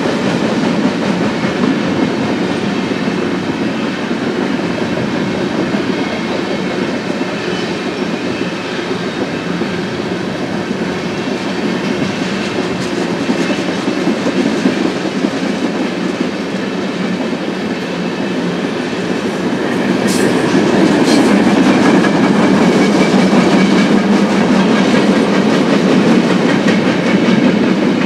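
Cars of a Union Pacific manifest freight train rolling past: a steady rumble of steel wheels on rail, growing somewhat louder about two-thirds of the way through.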